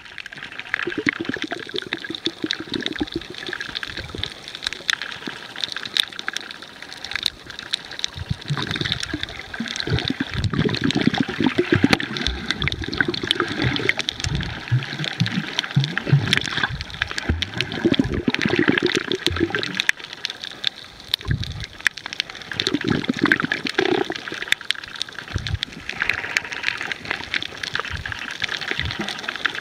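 Water heard underwater by the camera over a coral reef: irregular gurgling and sloshing surges over a constant fine crackle of clicks.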